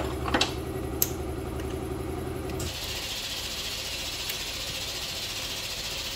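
Air compressor running with a steady hum, then shutting off abruptly about two and a half seconds in, after which a steady hiss of escaping air carries on. A couple of light clicks in the first second.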